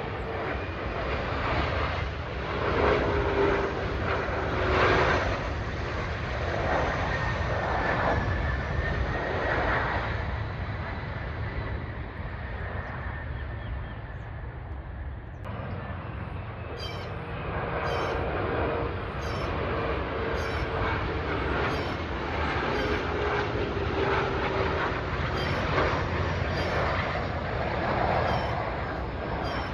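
Regional jet turbofan engines on landing, a continuous rush of jet noise with whines that slowly fall in pitch. About halfway through the sound changes abruptly to a second pass of the same kind. Faint bird chirps sound over it in the second half.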